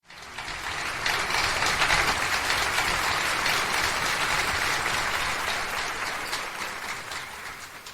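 Audience clapping, a dense steady applause that swells in about a second and dies down near the end.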